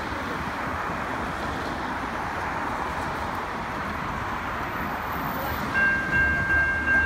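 Road traffic passing, a steady rush of tyres and engines. Near the end the crossing's Safetran Type 3 electronic bells start ringing in a pulsing, high-pitched tone as the red warning lights come on, the signal that a train is approaching.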